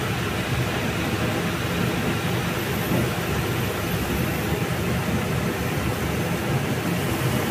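Pot of leaf-wrapped tempe simmering in spiced water for ungkep: a steady rushing noise with a low rumble underneath.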